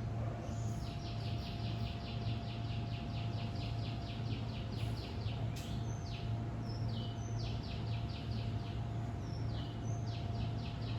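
A bird calling in rapid chirping trills, about seven notes a second: one long run, then several shorter runs, each opening with a higher note. A steady low hum runs underneath.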